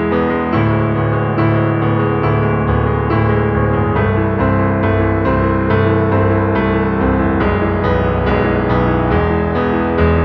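Background music led by piano or electric piano, a steady run of notes.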